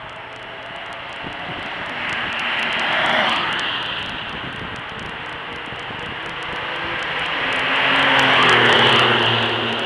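Two sports cars passing one after the other on a wet race track, each a rising and falling rush of tyre spray hiss with its engine note dropping in pitch as it goes by; the second pass, near the end, is the louder.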